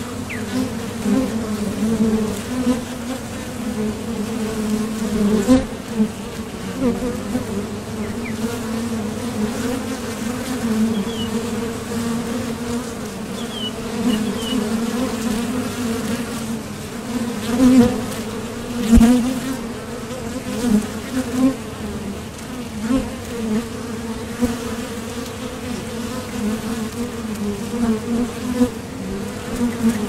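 Many honey bees buzzing in a steady low hum of wingbeats, swelling louder now and then as single bees fly close past the microphone.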